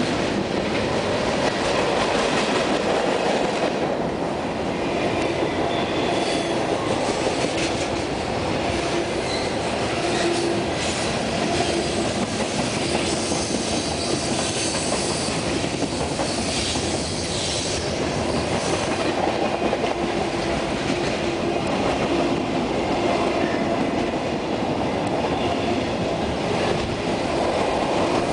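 Freight train's tank cars and boxcars rolling past steadily, their steel wheels running on the rails, with a faint steady tone coming and going through the noise.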